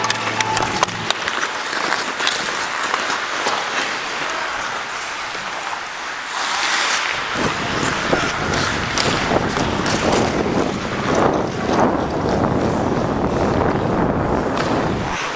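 Ice hockey skates scraping and carving the ice, with sharp clacks of sticks on ice and puck, starting at a faceoff. Wind buffets the moving camera's microphone from about halfway in.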